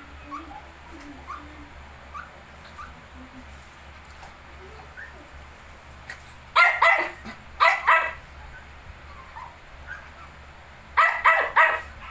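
A dog barking in three short clusters of quick, sharp barks, the last near the end. Faint, brief high squeaks from the 19-day-old puppies come between the barks.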